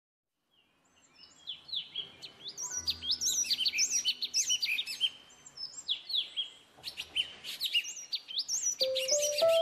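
Small birds chirping: many quick, repeated tweets that sweep up and down in pitch, starting about a second in and running in two dense spells. A few music notes come in near the end.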